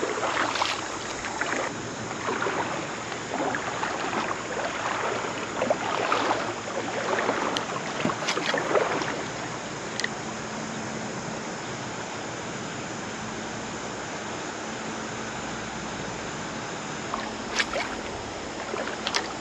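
River water sloshing and splashing irregularly for about nine seconds, then the steady rush of flowing current. Two light clicks come near the end.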